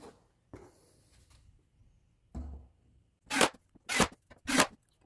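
Cordless drill driving screws through the metal drawer-slide bracket into the cabinet's plywood bottom plate, in three short bursts near the end. Before them come small clinks of screws being handled and a single dull knock about halfway through.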